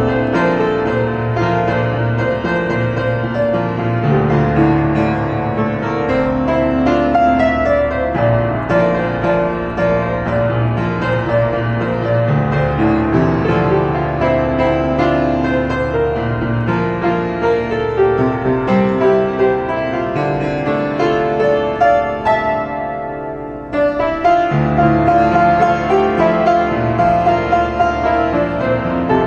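Piano playing a slow pop-ballad melody over sustained low bass notes. About three-quarters of the way through it thins out and dips in level, then comes back fuller.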